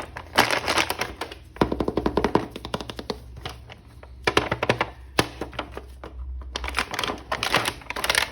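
Plastic toy packaging crinkling and clicking as an action figure is unwrapped, in several bursts of rapid clicks with a single sharp snap near the middle.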